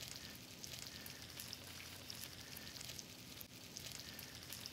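Grouper fillets searing in hot grapeseed oil in a nonstick skillet, browning to a crust: a soft, steady sizzle with many scattered crackles.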